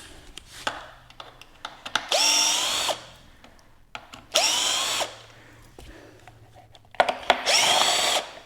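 Power drill/driver run in three short bursts, each spinning up into a steady whine, while screws are backed out of the unicycle's stock jump pads. Small clicks and handling knocks come between the bursts.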